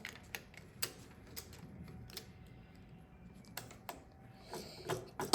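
Plastic Lego pieces clicking and tapping as they are handled and pressed together, in scattered small clicks with a slightly louder sound near the end.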